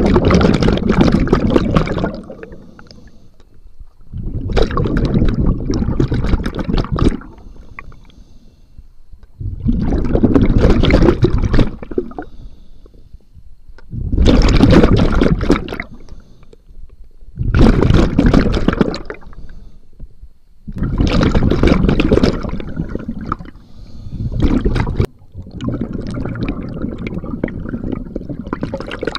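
A scuba diver's regulator exhausting breath underwater: loud bubbling bursts of about two seconds as each breath is exhaled, about every four seconds, with quieter gaps between them as the diver breathes in.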